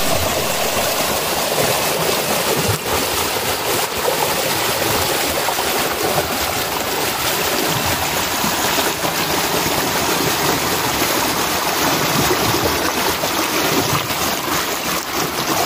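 Water rushing and splashing over rocks in a small stream waterfall, loud and steady.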